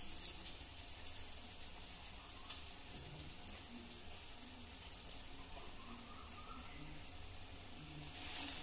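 Gram-flour-battered bread pieces deep-frying in hot oil on a low flame: a soft, steady sizzle with fine crackles. It grows louder near the end.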